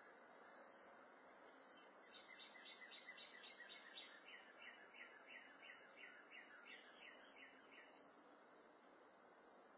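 Faint songbird song: a run of quick repeated notes, about three or four a second, lasting around six seconds, over a steady outdoor background hiss.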